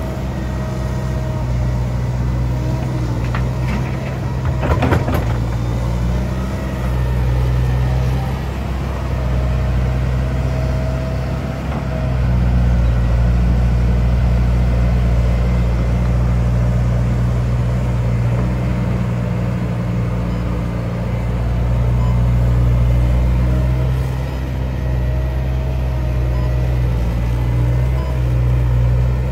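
Liebherr R916 crawler excavator's diesel engine running under working load, with a steady hum and a thin hydraulic whine, its note swelling twice as the machine works harder. A brief clatter of knocks about four to five seconds in.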